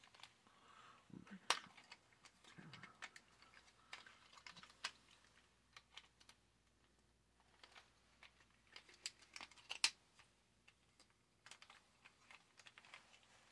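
Faint, irregular clicks and snaps of a plastic Beast Wars Megatron action figure's joints and parts being moved by hand during transformation.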